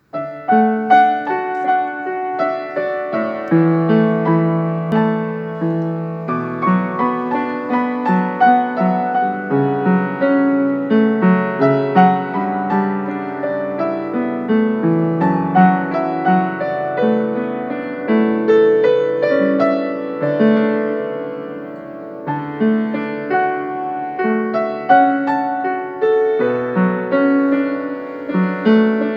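Solo piano playing a slow, gentle melody over low bass notes, each note struck and left to ring, with a brief softer passage about two-thirds of the way through.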